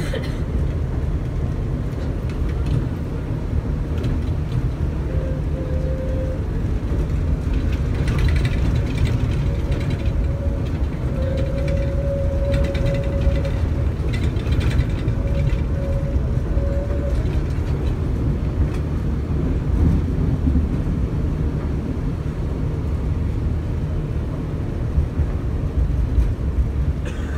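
Inside a moving tram: the car's steady low rumble on the rails, with a faint whine holding one pitch for several seconds in the middle.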